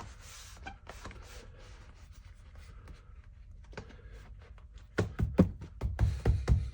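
Rubber door weather strip being pushed back onto the door-opening flange: light scraping and rustling, then, about five seconds in, a quick run of dull thumps as it is pressed home.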